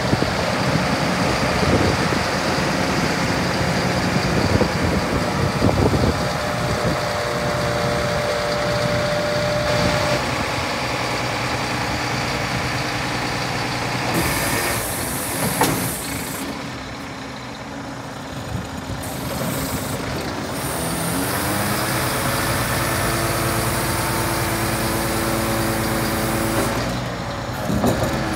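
Scania G440 truck's six-cylinder diesel running under load while its hydraulic hook-lift arm is lowered and folded back onto the chassis, with a steady hiss and tones from the hydraulics. About halfway the hiss stops and the sound drops for a few seconds before the engine picks up again.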